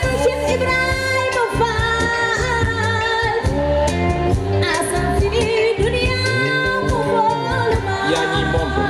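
Live band playing, with a woman singing the lead over violin, guitars, bass guitar and cajón.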